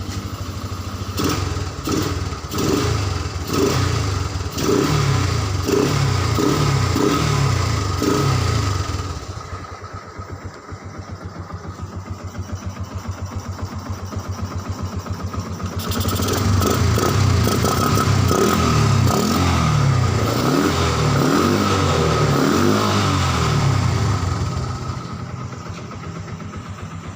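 Yamaha Byson's single-cylinder four-stroke engine, running on an aftermarket Keihin PWK 26 carburettor, revved in a series of quick throttle blips. It drops back to idle for several seconds about halfway through, is revved again, and settles to idle near the end.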